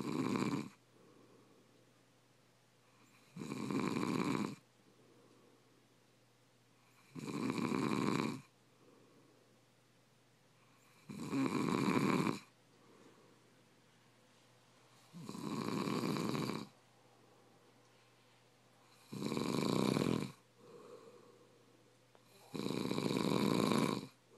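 A sleeping man snoring in a steady rhythm: seven snores about four seconds apart, each lasting a second or so, with faint breathing between them.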